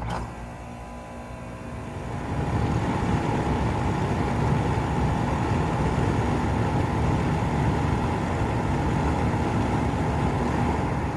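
2006 Rheem Classic 3-ton air conditioner condensing unit starting up: a sharp click, then the compressor and condenser fan come up to speed over about two seconds and run steadily with a humming drone.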